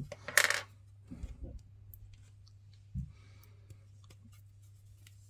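Light plastic clicks of a model-kit sprue being handled and snipped with sprue cutters. A short rustle comes about half a second in and a soft knock about three seconds in.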